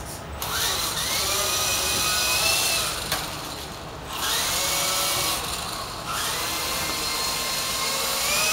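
Remote control helicopter's motor and rotor whining as the throttle is pushed up, the pitch climbing and then holding steady. It drops back about three seconds in and spins up again twice more.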